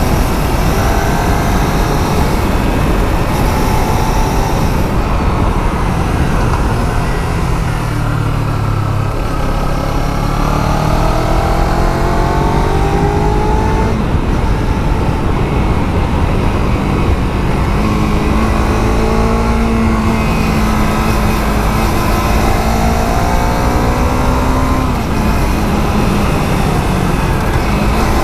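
Kawasaki Z300's parallel-twin engine with its stock exhaust, heard from on board while riding. Its pitch climbs under acceleration and drops back at each shift or roll-off, several times over, under heavy wind rumble on the microphone.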